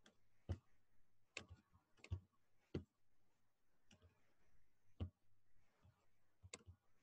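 Sharp clicks, about six, at irregular intervals over a faint low hum.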